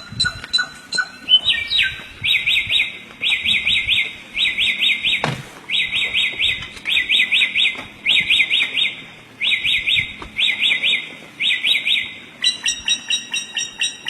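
Samyong songbird singing: a few sharp repeated chirps, then a long run of fast, trilling warble phrases, each under a second, repeated about ten times with short pauses. The repeated chirps return near the end, and a single sharp click sounds about five seconds in.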